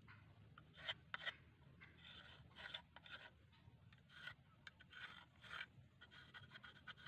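Faint scratching of a pencil on a wooden board in short strokes, tracing around a knife blade, with a few sharp taps about a second in.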